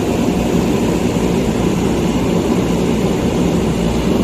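Heavy diesel engine of a backhoe loader running steadily, loud and close, then cut off suddenly at the end.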